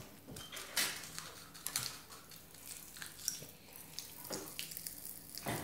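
Popping candy crackling and fizzing in children's mouths: a quiet, irregular scatter of tiny pops over a soft fizz.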